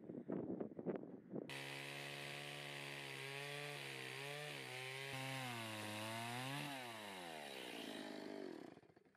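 Stihl two-stroke chainsaw cutting through a stack of boards. Its engine note dips as the chain loads in the wood and rises again, then dies away near the end. Rapid clicking fills the first second and a half before the saw is heard.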